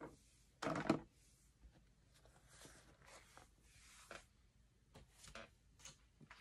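Paper and a cash envelope being handled: one short, louder rustle about a second in, then faint scattered rustles and light taps.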